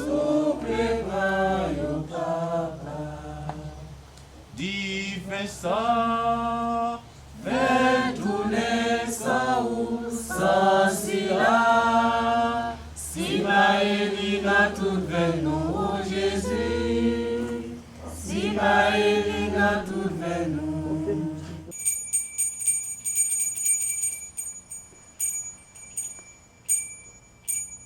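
Voices singing a slow liturgical chant in phrases, which stops about 22 seconds in. After it comes a faint high steady whine with scattered ticks.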